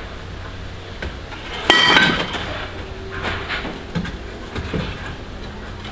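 Kitchenware clattering: one sharp ringing clink about two seconds in, then a few lighter knocks.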